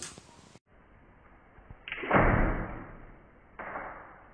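Crow bathing in a plastic basin, splashing the water with its wings and body, played back slowed down so the splashes are muffled and drawn out. There is one long splash about two seconds in and a shorter one near the end.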